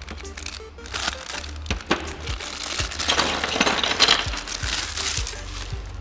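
Background music with a steady bass line, over the crinkling of plastic packaging being handled, loudest from about three to four and a half seconds in, with a few sharp clicks.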